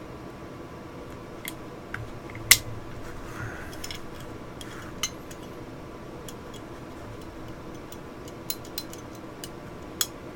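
Small metal clicks and clinks of Glock slide parts being handled and fitted together during reassembly, with one sharper click about two and a half seconds in. A faint steady hum runs underneath.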